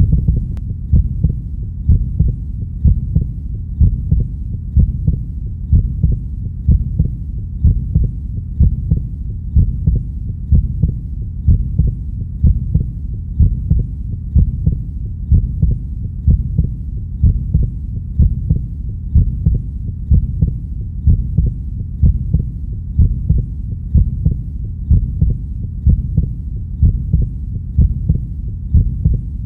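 Heartbeat, slow and steady at about one beat a second, each beat a low muffled pulse over a continuous low rumble.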